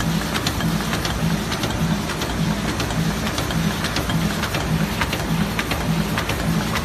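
Aluminium foil roll die-cutting machine running: a steady mechanical clatter with a low beat a little over twice a second and scattered sharp clicks.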